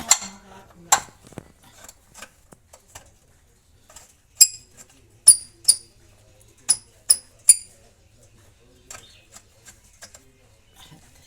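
Metal tools clinking against metal: about six sharp, ringing clinks between roughly four and eight seconds in, with lighter taps and knocks around them.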